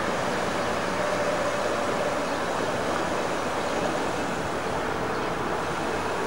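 Steady street noise as a car passes and a Toronto PCC streetcar approaches on its tracks, with a faint whine that fades and comes back.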